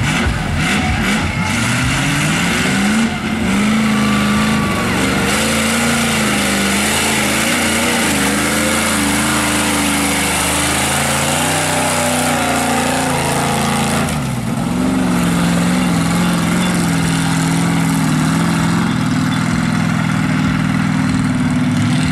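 Mud-bog Ford pickup on tractor tires, its engine running hard at high revs through the mud. The pitch climbs in the first few seconds and wavers while held high, drops out briefly about two-thirds through, then holds steady.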